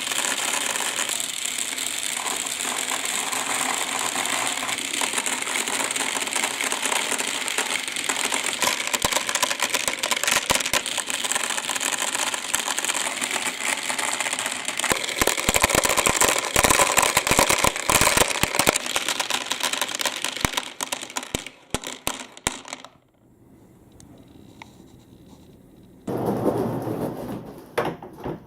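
Many small balls rattling and clattering down a marble run track in a dense, continuous stream, with heavier knocks for several seconds after the middle. The clatter dies away about 23 s in, and a short burst of rattling comes near the end.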